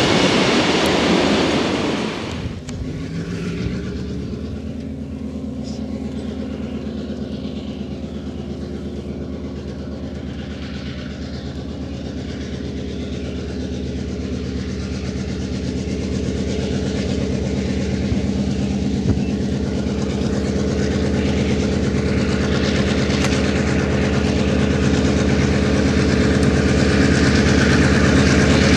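Passenger coaches rolling past close by with a loud rush of wheel noise, which cuts off after about two and a half seconds. Then a DSB MY-class NOHAB diesel-electric locomotive, a two-stroke EMD 567 V16, approaches with its engine running steadily and growing louder as it nears.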